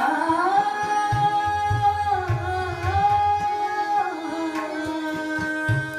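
A woman singing a devotional bhajan in Raag Bhairavi, holding long notes that slide between pitches, over a steady drone and repeated low drum strokes.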